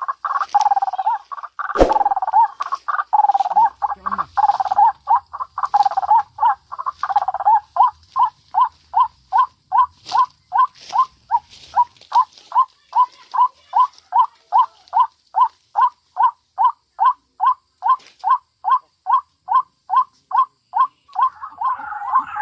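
White-breasted waterhen (ruak-ruak) calling: short notes repeated over and over. They are crowded and overlapping for the first several seconds, then settle into an even series of about two notes a second. A sharp click sounds about two seconds in.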